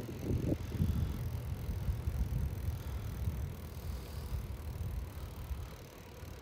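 Low, steady rumble of a bicycle ride: wind on the microphone and tyres rolling over cracked asphalt, with a couple of knocks at the start from bumps in the path. It eases off somewhat near the end.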